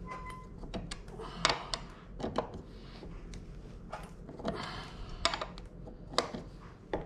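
Irregular clicks and light metallic knocks as a hex driver tightens the bolt on an e-mountain bike's crank arm, with hands gripping and shifting the crank.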